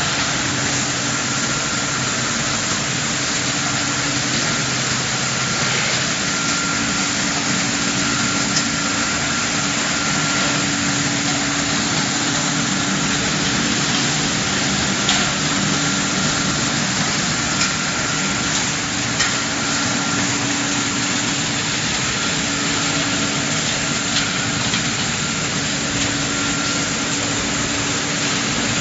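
Rotary drum sawdust dryer running: a steady mechanical din with a constant hum and a few scattered light clicks.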